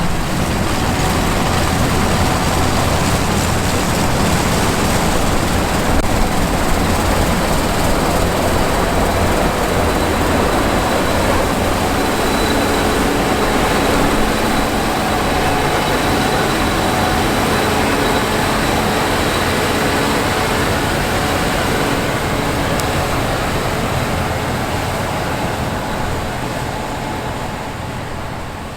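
Gleaner S97 combine running steadily while harvesting wheat: a low engine hum under the noise of the machinery, fading out over the last few seconds.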